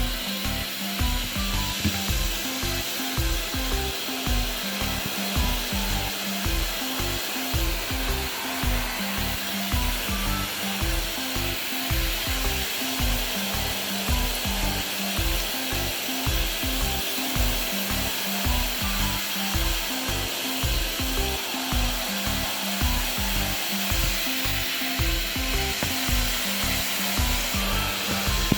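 Background music with a steady beat and short repeated notes, over a continuous hiss.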